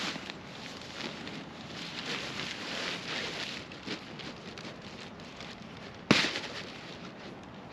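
Wood fire crackling, with a steady run of small ticks and one sharp, loud pop about six seconds in.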